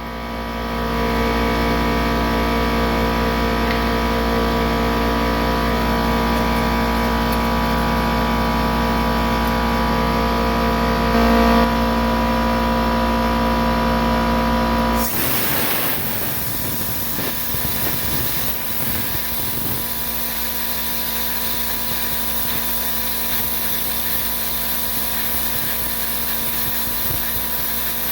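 Shop machinery running with a steady hum; about halfway through it switches suddenly to a loud, steady high hiss, as when a plasma cutter's torch fires and starts cutting.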